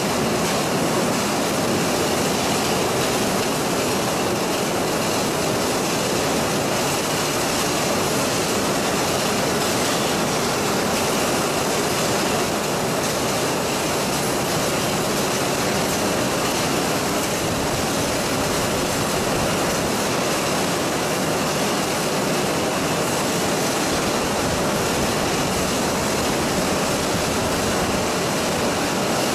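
Steady machinery noise of a poultry evisceration line: automatic evisceration machines and the overhead shackle conveyor running, an even rumble and hiss with no distinct knocks or rhythm.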